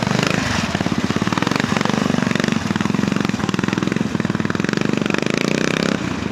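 Royal Enfield trials motorcycle engine running at low revs under light throttle, a steady rapid beat of firing pulses, as the bike is ridden through a trials section. The engine note drops away about six seconds in.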